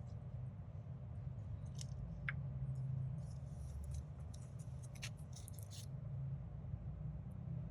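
Handling noises from the HDD dock and its packaging: a few scattered small clicks and crinkles over a steady low hum.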